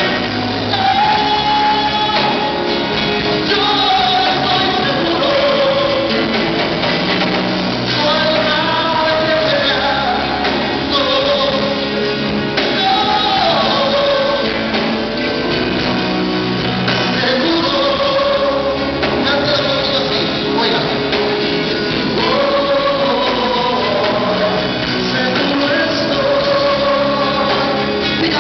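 Live performance of a worship song: a male vocalist singing into a microphone over a live band with acoustic guitar, a steady full sound.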